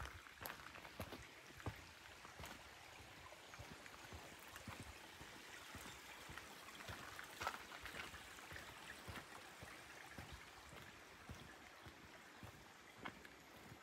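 Faint outdoor ambience: a steady, quiet hiss of running water like a stream, with scattered light clicks and taps.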